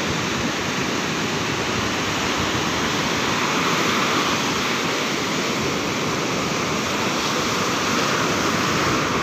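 Heavy sea surf breaking and washing up the beach, a steady rushing noise of waves.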